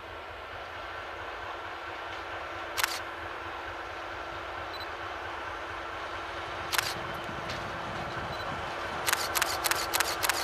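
ČKD T458.1 'hektor' diesel shunting locomotive approaching slowly with loaded cement hopper wagons, its six-cylinder diesel engine running with a steady drone that grows louder as it nears. Sharp metallic clicks cut through it about three seconds in, again near seven seconds, then in a quick run near the end.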